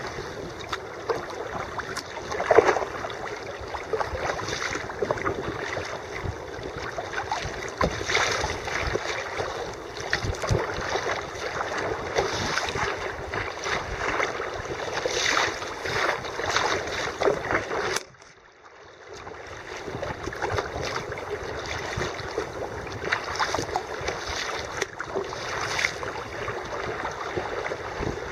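Choppy sea water sloshing and splashing against a sea kayak's hull close to the microphone, with irregular splashes from paddle strokes and some wind on the microphone. About eighteen seconds in, the sound drops away almost entirely for a second, then returns.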